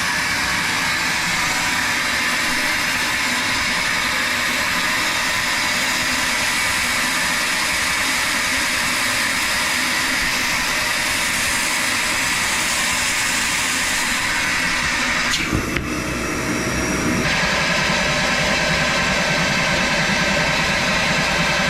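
Milwaukee M18 Fuel cordless wet/dry shop vacuum running steadily with a loud rushing of air. About fifteen seconds in there is a short knock and the sound changes to a different tone.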